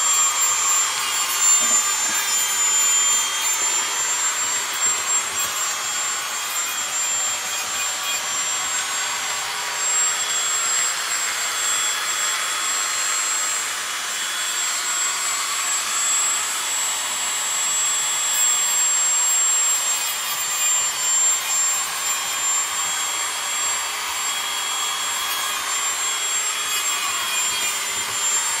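A motor-driven tool running steadily: a loud, even rushing hiss with a thin high whine held nearly level on top.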